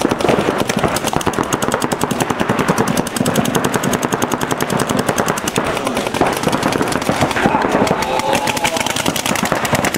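Several paintball markers firing rapid strings of shots at once, a dense, continuous rattle of pops.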